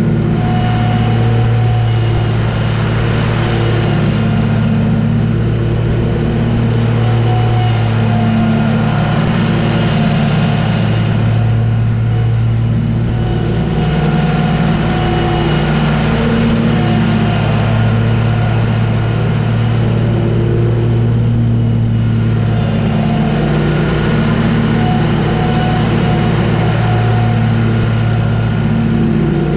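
Commercial zero-turn lawn mower running at working speed while mowing grass: a steady engine drone, its pitch shifting slightly every few seconds as the mower turns and works.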